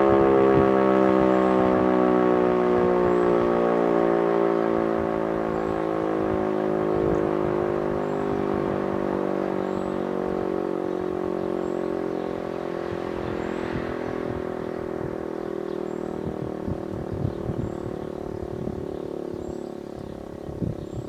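E57 electromechanical civil-defence siren winding down during a test alarm: its many-toned wail slowly falls in pitch and fades.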